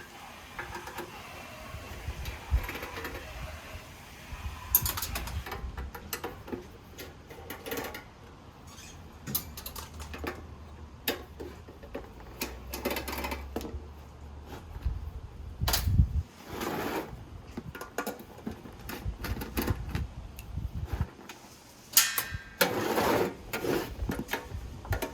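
Screws being removed and metal parts of a steel NAS enclosure handled: scattered clicks, knocks and rattles, with a few louder knocks.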